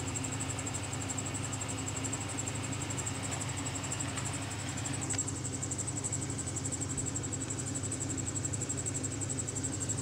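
Chevrolet Silverado's 4.3-litre V6 idling steadily and evenly, heard from the engine bay. The misfires on cylinders 1 and 2 are cured by a new distributor cap and rotor, so it runs smooth. A faint steady high whine sits over it.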